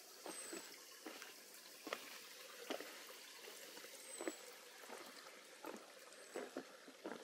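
A hiker's footsteps on a forest trail, faint and irregular, roughly one or two steps a second, over a steady hiss. Three brief, very high, thin descending whistles come about a third of a second in, around four seconds in, and near the end.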